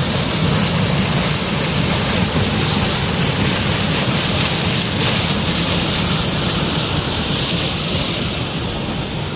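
High-pressure water gushing out of a large pipe outlet and rushing down a rocky channel: a loud, steady rush of white water that grows slightly fainter near the end.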